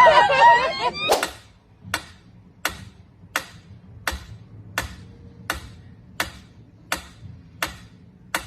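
A brief voice in the first second, then sharp clicks repeating evenly, about eleven of them, roughly one every 0.7 seconds, like a clock ticking.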